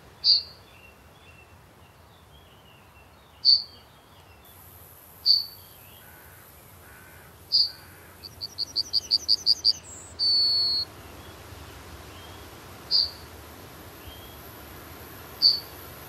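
Yellowhammer calling and singing. Single short, sharp call notes come every few seconds. About halfway through comes one song: a rapid run of about ten quick notes growing louder, ending in one long drawn-out note.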